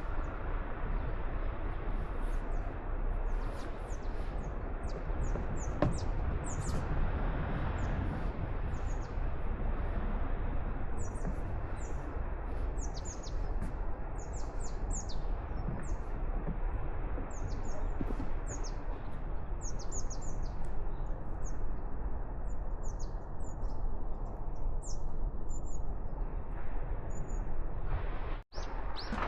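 Small birds chirping in quick, high twitters throughout, over a steady rushing background noise. The sound drops out for an instant near the end.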